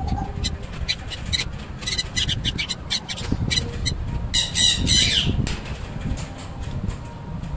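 Small caged parrots chirping and squawking in many short calls, busiest about four and a half seconds in, while wire cutters snip at the welded cage mesh.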